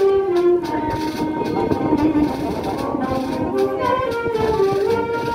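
Brass band playing a dobrado, a Brazilian military march: a brass melody over steady drum beats.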